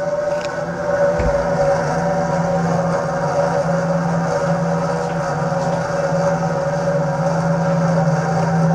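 Four-door commercial refrigerator-freezer running, its interior fans and machinery giving a steady hum with a couple of held tones. It gets a little louder about a second in, where there is one dull knock.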